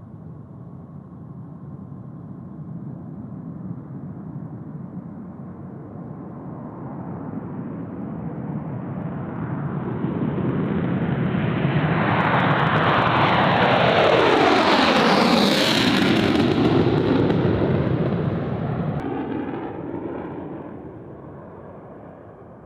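Fighter jet passing close by: the engine noise builds steadily, is loudest about two-thirds of the way through with a sweeping change in tone as the jet goes past, then fades away.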